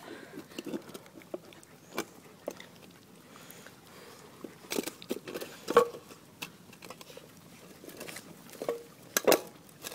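Bernese mountain dog and Chinese crested puppies eating fruit: wet chewing and smacking with scattered small clicks and knocks, a few sharper knocks near the middle and near the end.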